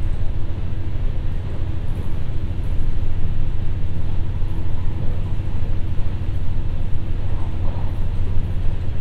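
Ibara Railway IRT355 diesel railcar heard from inside the passenger cabin: its diesel engine drones steadily with a low hum.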